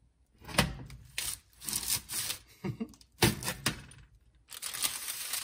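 Pizza cutter wheel rolling through a once-baked almond biscotti loaf on a parchment-lined baking sheet: four crunchy, scraping cutting strokes, two of them starting with a sharp crack.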